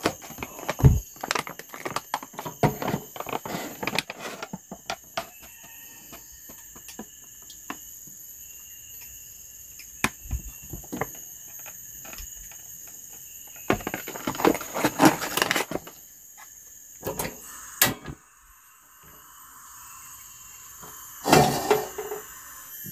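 Scattered knocks, clinks and handling noises of kitchenware: an aluminium wok and utensils being handled and set on a gas stove, with a faint steady background hiss between the knocks.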